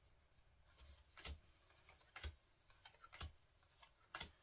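Faint snaps of Pokémon trading cards being flipped through one at a time, about one sharp click a second with softer ticks between.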